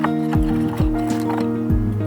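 Background music with held tones and a regular beat of low drum hits.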